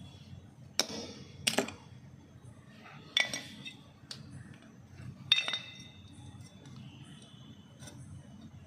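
Sharp metallic clinks and knocks, each with a short ring, as metal tools and brake-shoe parts are handled and knocked together: five strikes, a pair about a second and a half in, and the loudest about five seconds in.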